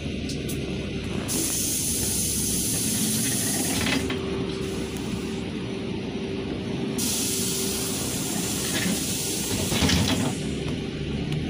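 Inside a LiAZ 5292 city bus under way: steady engine and road noise, broken twice by a stretch of hiss that starts and stops abruptly, the first about a second in and the second past the middle. A faint steady whine runs between the two hisses.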